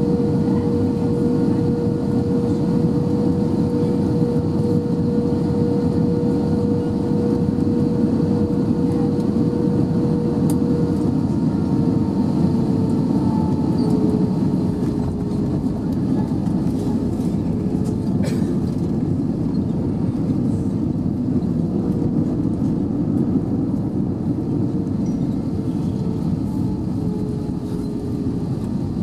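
Airbus A320 cabin noise at a window seat over the wing during landing: a steady rumble of engines and airflow with a steady engine whine. About halfway through, the whine starts to waver and the noise eases slightly as the jet is on the runway and rolling out. There is a brief click about two-thirds of the way in.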